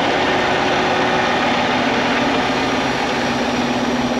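An engine idling steadily, with a steady hum that grows stronger about halfway through.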